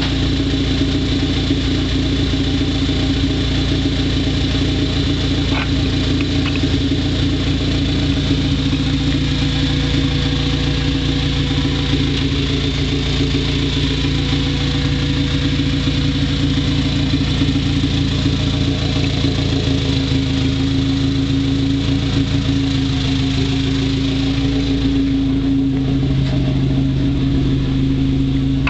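Honda B18C1 (Integra GS-R) 1.8-litre DOHC VTEC four-cylinder, swapped into a Civic and breathing through an aftermarket header, idling steadily. The idle eases a little lower about twenty seconds in and again near the end.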